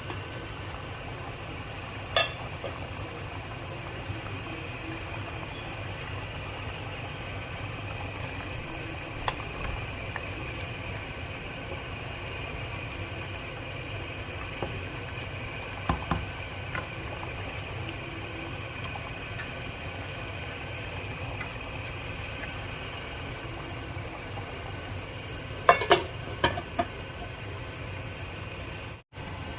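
A steady hum and hiss of cooking on the stove, broken by a few sharp clinks of a spoon against the cooking pot, with several close together near the end.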